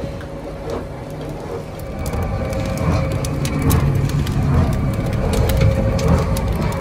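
Two-roll rubber mill running: its steel rollers turn and squeeze black rubber compound through the gap, giving a steady low rumble with a constant hum and a scatter of sharp crackling clicks. It grows louder about two seconds in.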